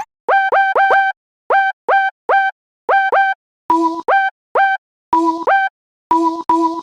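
Sampler playing a short electronic beep sample over and over in a quick rhythm, each note starting with a brief upward blip. From about halfway through, some notes add a lower second tone.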